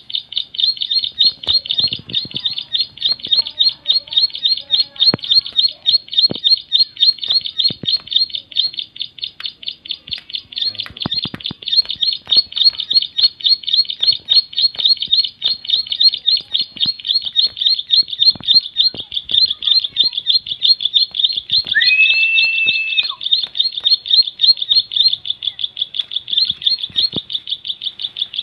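Ciblek (prinia) singing loudly: a fast, unbroken string of high chirping notes, several a second, kept up without pause.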